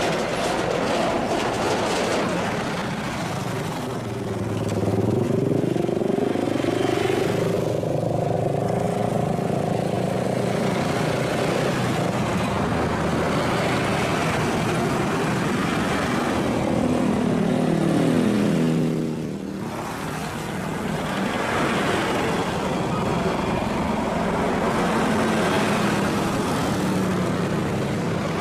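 Motor vehicles passing close by twice, their engine pitch sliding down as each goes past. Beneath them is the steady drone of a large twin-turbine EC-725 Caracal helicopter flying in toward the airfield.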